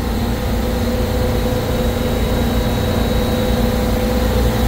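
Supermarket refrigeration compressor rack running: a steady, unbroken machine-room drone with a low hum and a faint steady tone over it.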